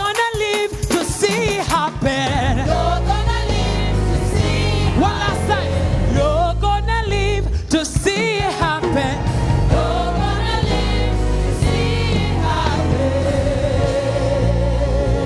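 Gospel worship music: choir and lead singers with wavering, held notes over accompaniment, a deep bass line coming in about two seconds in.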